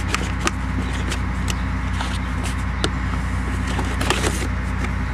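Scattered clicks and knocks of a plastic battery cover being handled and pulled off in a car's engine bay, over a steady low machine hum.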